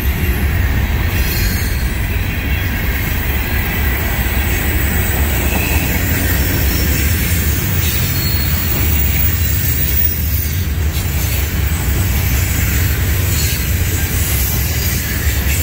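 Herzog ballast hopper cars of a freight train rolling past close by: a steady, loud low rumble of steel wheels on the rails.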